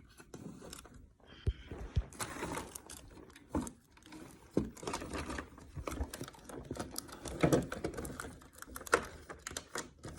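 Hands working at plastic toy packaging, with irregular clicks, taps and rustling as a small stuck plastic accessory is pried loose from its compartment.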